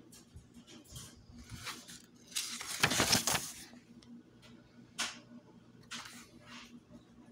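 Paperback book pages being handled and turned, a papery rustling in short bursts. The loudest rustle comes about two and a half seconds in and lasts about a second.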